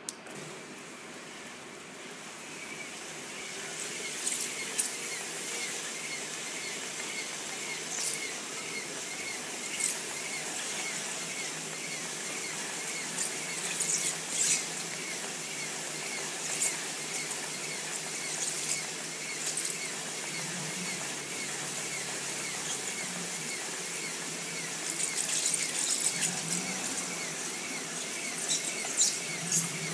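Desktop label rewinding and counting machine running: its small gear motor turns the reels as a roll of labels winds from one reel to the other, coming up to speed over the first few seconds. A light chirp repeats throughout, with occasional sharp clicks and crackles.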